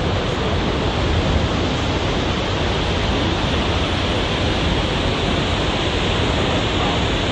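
Vøringsfossen waterfall: falling water making a steady, loud, even rush of noise that stays unchanged throughout.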